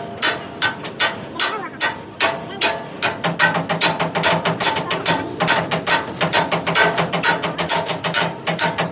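Rapid, repeated hammer blows on steel during truck chassis frame repair, several strikes a second with a ringing tone.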